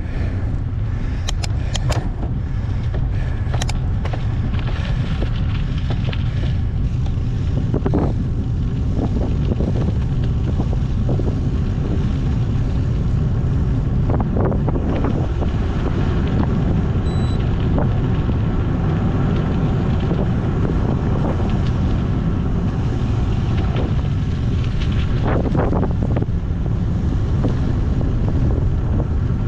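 Steady wind noise buffeting the microphone of a rider on a mountain bike, with a few sharp clicks in the first few seconds.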